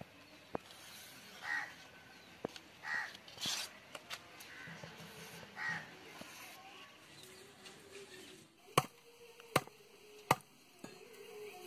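Crows cawing several times in the first half, then three sharp knocks about a second apart near the end.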